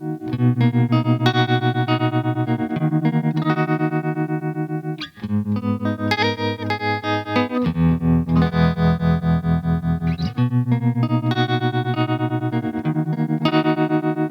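Behringer BM-12 ring modulator processing sustained instrument notes into metallic, clangorous tones. The notes pulse rapidly in volume and shift pitch every couple of seconds, with a brief dropout about five seconds in.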